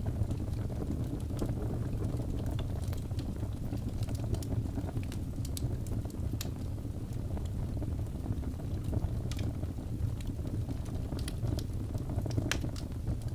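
Wood logs burning in a fireplace: a steady low rumble of flames with irregular sharp crackles and pops, one louder pop near the end.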